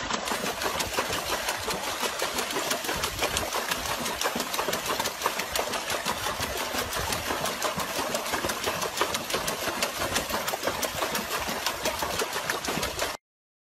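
A dog paddling its front paws in a plastic tub of water, making rapid, continuous splashing that stops abruptly near the end.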